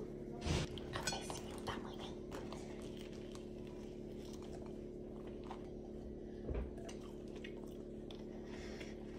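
A few short taps and clinks of a small shaker and plate in the first two seconds, then quiet biting and chewing on a buttered bread roll, over a steady low hum.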